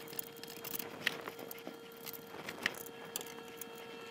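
Faint, scattered small clicks and knocks as the 3D printer's heated bed and its spring-loaded levelling screws are handled and snugged down at the corners, over a faint steady hum.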